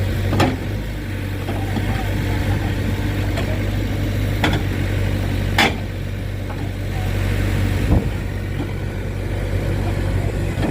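Heavy diesel engine running steadily at low revs, with a few sharp clicks or knocks over it.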